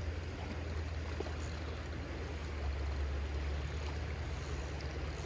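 Shallow trout creek running steadily over a riffle, with a low rumble underneath.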